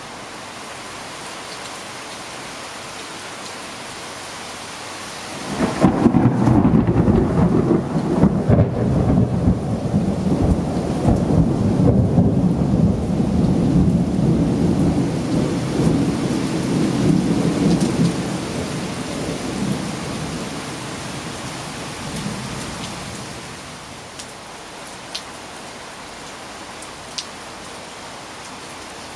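Steady rain hisses, then about five seconds in a loud clap of thunder breaks in suddenly and rumbles on deep and heavy for over ten seconds before rolling away and fading. Two sharp ticks sound near the end.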